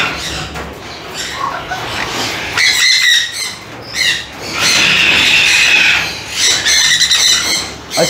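Parrots screeching: several long, harsh, loud calls in a row with short gaps between them.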